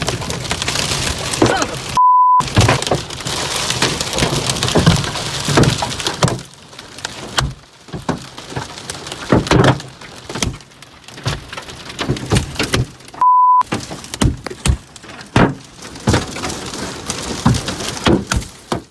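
Very intense hail pounding a car: a dense clatter of hard ice hitting the body and glass, with many sharp individual strikes. Twice a short steady beep tone cuts in, as when words are bleeped out.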